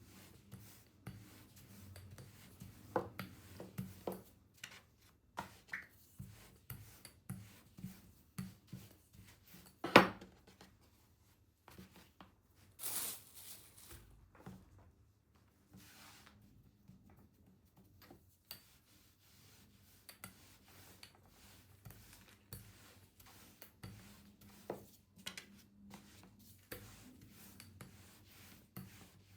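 Kitchen food-preparation handling sounds: a series of light taps and clicks, one sharp knock about ten seconds in, and a brief rustle around thirteen seconds.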